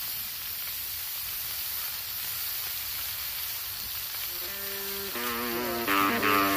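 Top round steaks sizzling in hot olive oil in a cast iron skillet, a steady frying hiss. About two-thirds of the way through, music with long held notes comes in over the sizzle and gets louder near the end.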